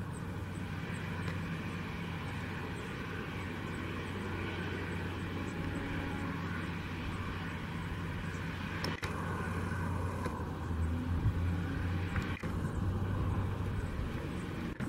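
Cessna Citation X business jet's two rear-mounted turbofan engines running at taxi power: a steady low hum under a broad jet hiss.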